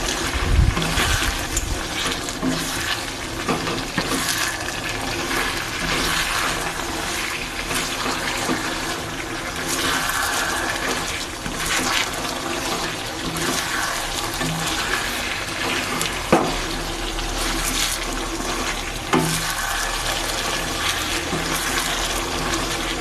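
Chicken cooking in mustard paste sizzling in a pan: a steady hiss, with a couple of sharp knocks in the second half.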